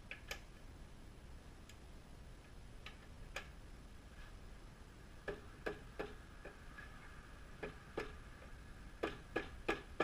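Sharp metallic taps on the front axle of a 2000 Honda CBR929 as it is driven out of the wheel. There are a few scattered single taps at first, then quicker clusters of taps in the second half.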